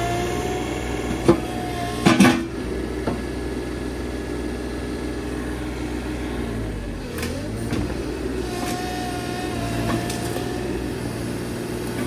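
Mini digger running with a hydraulic rotary cutting head spinning on its arm, giving a steady engine note with a whine over it. Sharp cracks of wood breaking about one and two seconds in, and a brief dip in pitch around seven seconds in.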